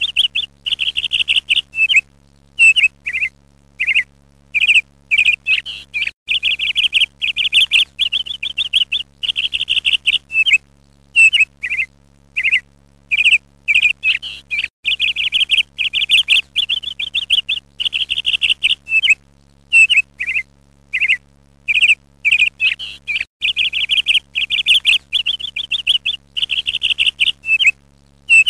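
Ducklings peeping: rapid runs of high-pitched peeps with single falling peeps between them, going on without a break.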